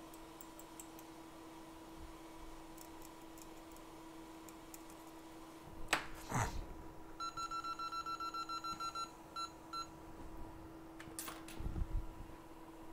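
Rapid electronic beeping from workbench equipment: about a dozen short beeps in under two seconds, then two more. A steady electrical hum runs throughout, with a brief rustle before the beeps and another after them.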